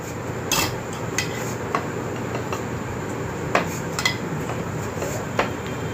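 A serving spoon clinking and scraping against a steel pan and a glass bowl as sauced chicken is dished out: about half a dozen sharp clinks spread out, over a steady low hum.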